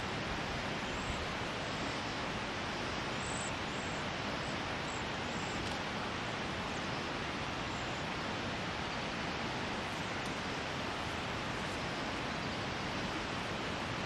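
Steady, even rushing of shallow water flowing over rocks.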